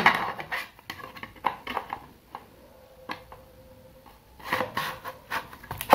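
Plastic hard-drive enclosure being closed by hand: light clicks and rubbing as the drive tray slides into the casing's shell, with a quiet stretch of about two seconds in the middle.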